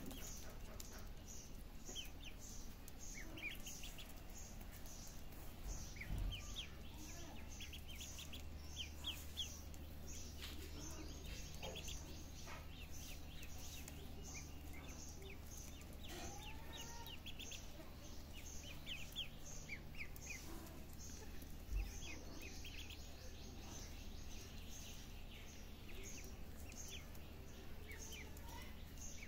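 Ducklings peeping: short high chirps in quick clusters, over a steady low hum and a faint high ticking about twice a second. Two dull thumps, about six seconds in and a little past twenty seconds.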